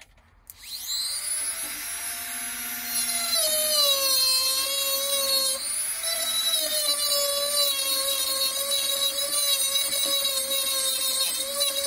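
Handheld rotary tool (Tacklife, Dremel-type) spinning up with a rising whine, then sanding the cut edge of a slate piece. It gets louder and its pitch dips and wavers as the sanding bit bears on the stone.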